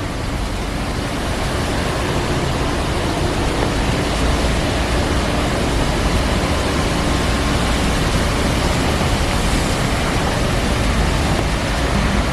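Busy city street traffic with buses driving past: a steady wash of engine and road noise that builds over the first couple of seconds and then holds.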